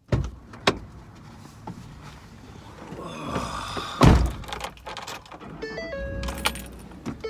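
Thumps and knocks of handling inside a vehicle cab, the loudest and deepest about four seconds in. A short electronic tune of stepped notes starts near the end and repeats.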